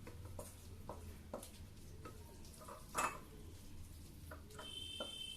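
Spoon scraping and clinking against a cooking pan and serving dish as curry is spooned out: scattered light knocks, with a louder one about three seconds in. A faint steady high-pitched tone starts near the end.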